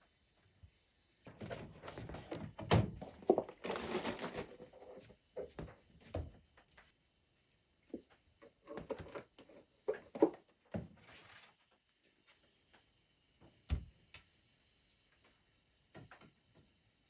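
Irregular knocks, thuds and rustling handling noises in two clusters, then one sharp thud a little over two-thirds of the way through.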